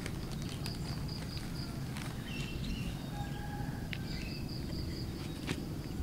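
Steady outdoor background noise with a faint high-pitched insect drone that comes and goes, and a few short, faint bird chirps. A few soft clicks come from hands handling a black plastic plant polybag.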